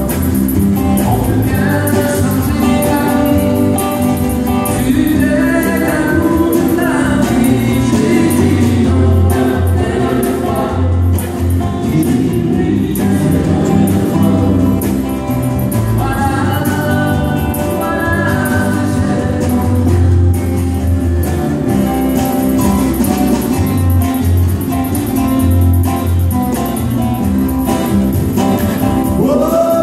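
Live country band playing: several men singing together over strummed acoustic guitars, an electric bass guitar and a shaken tambourine.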